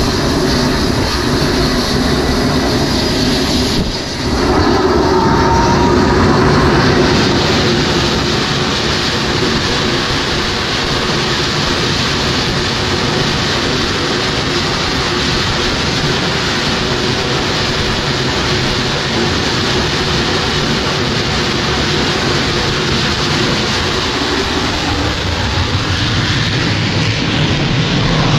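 Twin jet engines of an F/A-18 fighter running at high power on an aircraft carrier's catapult: a loud, steady roar with a short dip about four seconds in.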